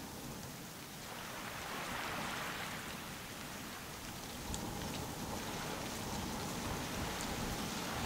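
Small waves lapping and washing onto a sandy beach: a steady hiss of water that swells about two seconds in and again about halfway through.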